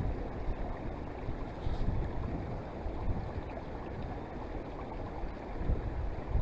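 Wind buffeting the microphone: a low, uneven rushing noise that swells and eases.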